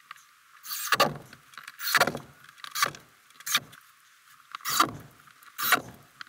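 Cordless drill driving screws into wood blocks in six short bursts about a second apart.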